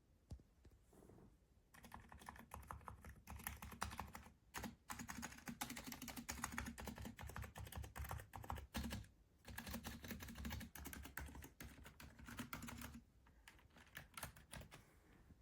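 Typing on an RK Royal Kludge M75 mechanical keyboard with red linear switches: a fast, dense run of keystrokes with two short pauses, thinning to scattered key presses near the end.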